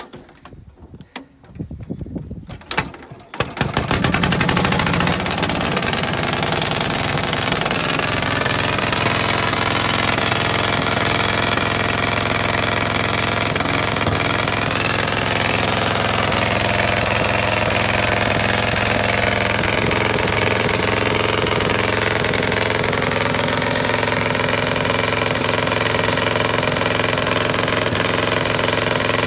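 Caterpillar D8 bulldozer's two-cylinder petrol pony motor being hand-cranked with a few uneven turns. It catches about three and a half seconds in and settles into a steady run, its speed wavering up and down for a while.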